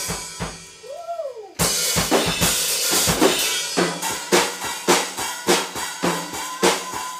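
Drum kits being played loosely and together: a full-size kit with bass drum, snare and cymbals, and a toddler banging on a small child's drum kit. A brief lull with a short rising-and-falling voice comes about a second in, then the hits pick up with a cymbal wash.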